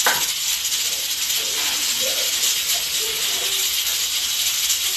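Pressure cooker hissing steadily as it vents steam while it cooks. A short knock comes right at the start, and a few faint clatters of dishes follow.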